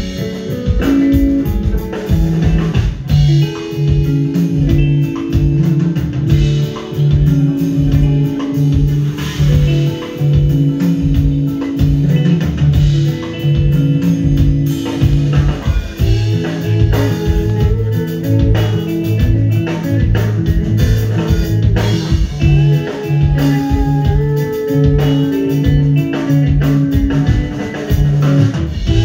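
Live math rock trio playing: clean electric guitar, a busy melodic bass guitar line of repeating notes, and drum kit, heard from the audience.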